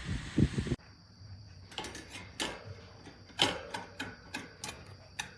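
The electric table fan's steady airflow noise, with a few low thumps, cuts off abruptly under a second in. Scattered light clicks and knocks follow.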